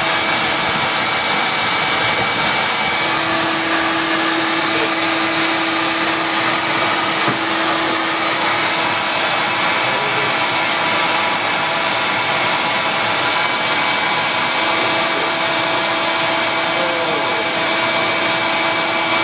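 Vacuum running steadily with a constant rushing noise, its hose sucking honeybees out of a wall cavity.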